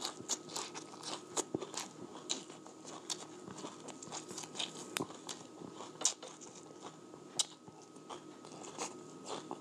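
A person chewing crunchy food with the mouth close to the microphone: irregular crisp crunches and small clicks, a few louder bites among them.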